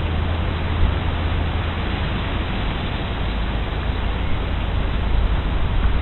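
Steady, even hiss of background noise with a low hum beneath it, and no distinct calls or knocks.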